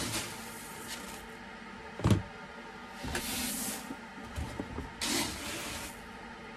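Malt grain being scooped out of a plastic bin with a plastic scoop and poured, a dry rushing hiss of grain heard a few times, with one sharp knock about two seconds in.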